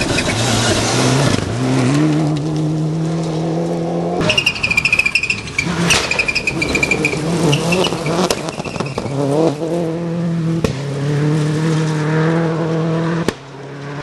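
Rally cars driven at full throttle on a loose gravel stage, engines holding high revs with the pitch climbing about a second and a half in, while gravel sprays and scrabbles under the tyres. The sound changes abruptly twice as one car gives way to another.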